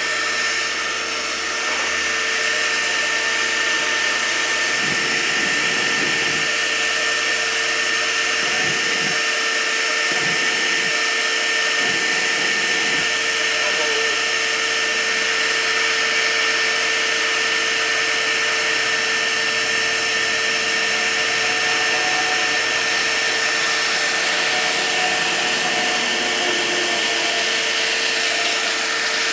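Shop vacuum motor running steadily with a constant high whine, used as a blower to pull air through the wood gasifier while it is brought up to gas on a cold start.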